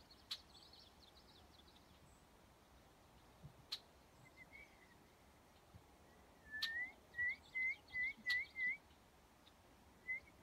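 A songbird whistling a run of about six short rising notes, roughly three a second, a little past the middle, then two more near the end, over faint high twittering. A few sharp clicks are heard here and there.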